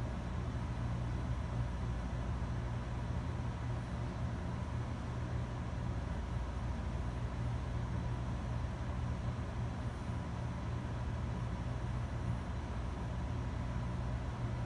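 Steady low background hum, with a faint steady high tone above it and no change throughout.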